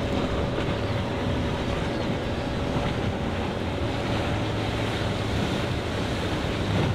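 Twin Yamaha 250 outboard engines on a center-console boat running at planing speed, a steady engine sound blended with rushing water and wind noise on the microphone.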